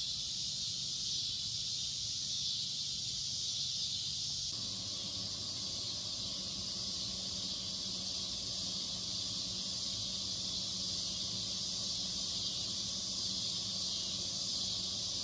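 Dense, steady chorus of crickets and other night insects. A low steady hum joins about four and a half seconds in.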